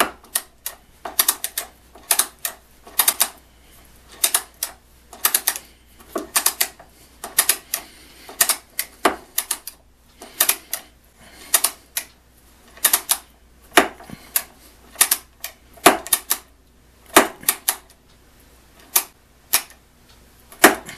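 Weltrecord ratcheting screwdriver clicking as its loop handle is swung back and forth to drive a Phillips screw into wood, in short runs of rapid clicks about once a second.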